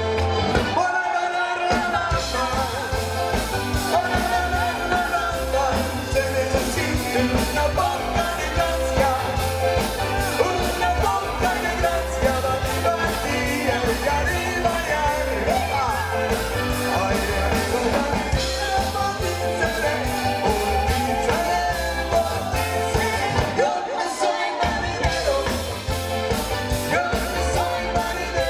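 Live polka band playing: piano accordion over a steady drum beat and bass, with sung vocals. The bass drops out briefly about a second in and again near the end.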